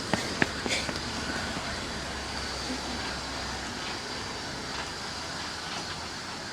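Narrow-gauge steam train at the station: a steady low rumble with a high hiss, after a few sharp clicks at the start. The rumble eases after about four seconds.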